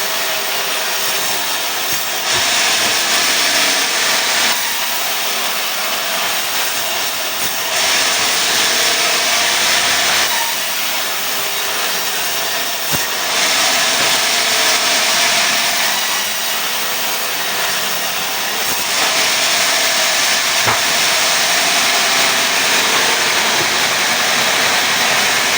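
Sawmill saw cutting pine into boards: a loud, dense cutting noise, strongest in the high range, that swells and eases every few seconds as the cuts go on.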